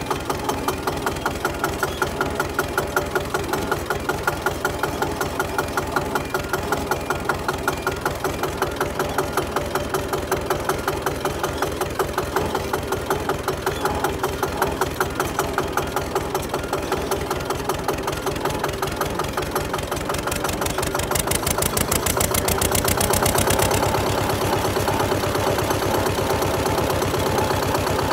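Zetor 25 K tractor's two-cylinder diesel engine idling with slow, even beats. About twenty seconds in it speeds up and runs on faster and a little louder.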